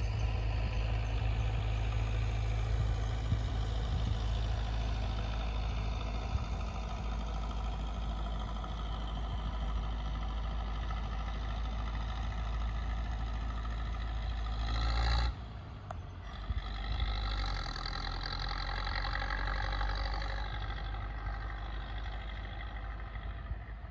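A vehicle engine running steadily with a deep rumble, which drops off sharply about fifteen seconds in, leaving a fainter, higher hum that fades near the end.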